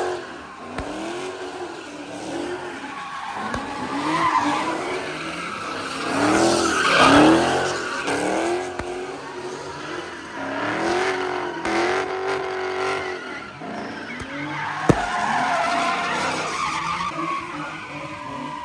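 A car spinning its tyres in a pit, its engine revving up and down over and over over continuous tyre squeal. There is a single sharp crack about 15 seconds in.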